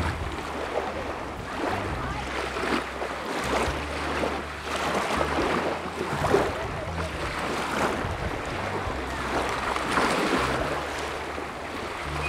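Small waves lapping and splashing at the shoreline, with wind buffeting the microphone in uneven gusts.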